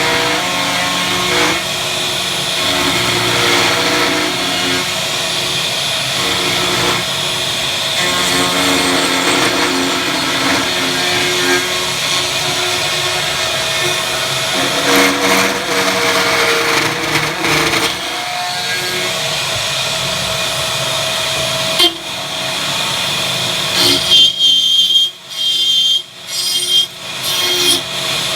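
A power tool running steadily under load, then switched on and off in short bursts for the last few seconds, with a high whine each time it spins up.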